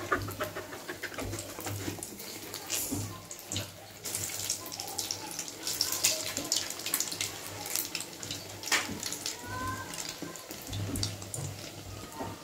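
Egg-battered bread slice deep-frying in hot oil in an aluminium kadai: a steady sizzle with many small crackles and pops.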